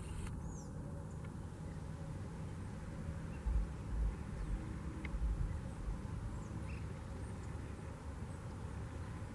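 Outdoor field ambience: a steady low rumble with a few dull low thumps around the middle, and a single faint high chirp from a distant bird about half a second in.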